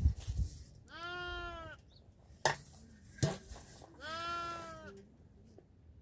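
A goat or sheep bleating twice, each call about a second long and arching up then down in pitch. Between the calls come two sharp taps, from hands sorting wild figs on a metal tray.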